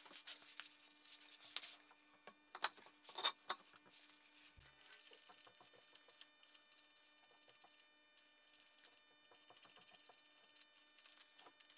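Faint clicks and rustles of a car wheel being fitted onto its hub and its lug nuts threaded on by hand, with a few sharper metallic clicks about three seconds in, over a faint steady hum.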